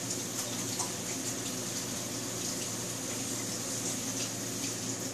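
Kitchen tap running as hands are washed under it.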